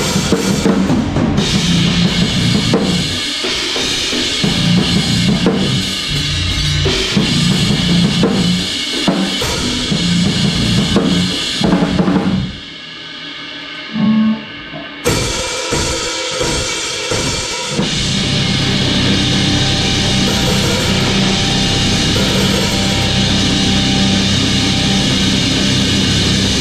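Drum kit played through a song with the band: bass drum, snare and cymbals in a steady beat. Near the middle the music drops out briefly around a single hit, then comes back, and over the last eight seconds a held chord rings out without drum strokes.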